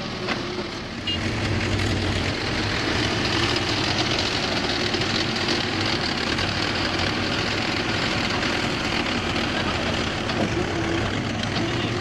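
Diesel engines of a CAT 424B2 backhoe loader and a Mahindra Yuvo tractor running steadily close by, getting somewhat louder about a second in.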